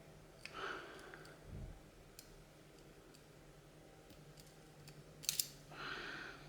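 Faint metallic clicks of a lock pick working the pins of a Mul-T-Lock padlock, with a pair of sharp clicks about five seconds in. Two breaths are heard, one near the start and one near the end.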